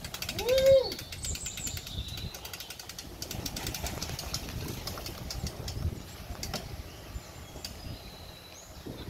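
Outdoor ambience: small birds chirping over a steady low rumble, with one loud, brief call that rises and falls about half a second in.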